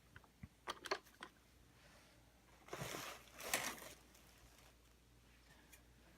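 Faint handling of a robot vacuum's plastic parts during reassembly: a few small clicks, then two short scraping rustles.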